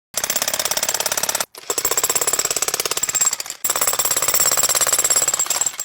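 Electric demolition jackhammer hammering in rapid, even strokes, in three runs with short pauses about one and a half and three and a half seconds in.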